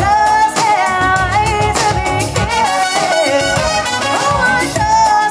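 Live band playing upbeat Latin-style music, a melody line over a steady beat.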